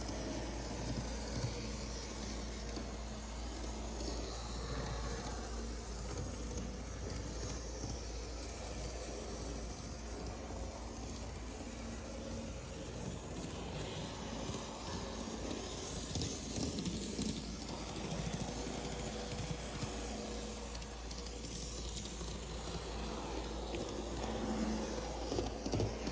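Kato N scale model tram running steadily around the track: a faint hum of its small motor and wheels under a steady hiss.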